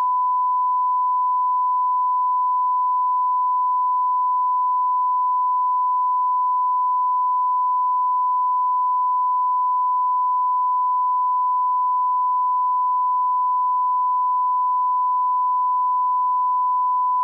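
Electronic alert tone: a single pure, steady tone held without a break.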